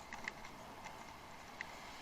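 A bicycle ridden off-road: a few scattered light clicks and rattles over a faint, steady rush of tyre and wind noise.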